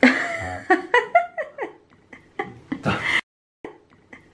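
People laughing and giggling in short falling bursts, which breaks off in an abrupt dead cut a little after three seconds in.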